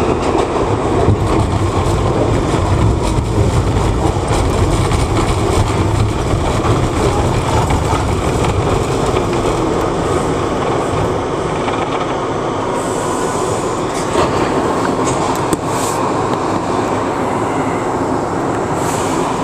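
R62A New York City subway train in motion, heard from inside the front car: a steady rumble and clatter of wheels on rail, with a few short high-pitched screeches in the second half.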